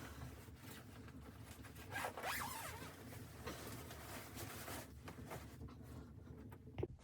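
Rasping, scratchy handling noise in a run of strokes, loudest about two seconds in, with a sharp click near the end.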